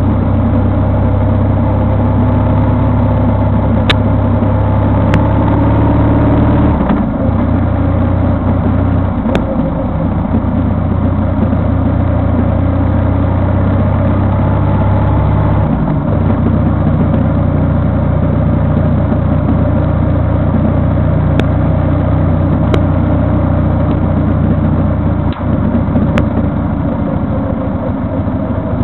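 A vehicle's engine running steadily while driving. Its note shifts twice, about a quarter of the way and about halfway through. A few sharp clicks sound over it.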